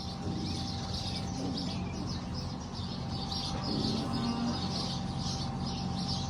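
Small birds chirping over and over, over a steady low mechanical hum.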